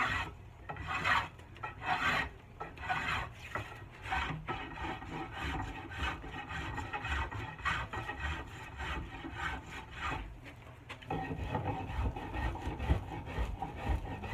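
Spokeshave blade shaving a wooden axe handle in quick repeated strokes, about two a second, becoming a denser, steadier scraping near the end. The spokeshave has been turned around to cut with the grain, which had been running the opposite way and making it chatter.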